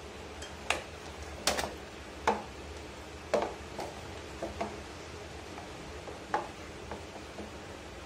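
Hard plastic refrigerator drip tray clicking and knocking as it is pulled off its mount above the compressor and set down on a stone floor: a string of sharp knocks, the loudest four in the first few seconds, then lighter taps.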